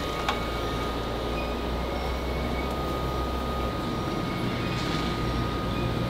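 Foundry sand-molding machinery running steadily, a low hum with a thin steady whine above it, and one sharp click about a third of a second in.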